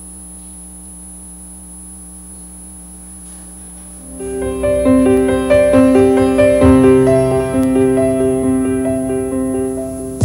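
A low, steady hum, then about four seconds in a gentle piano melody of repeated notes begins and carries on as background music.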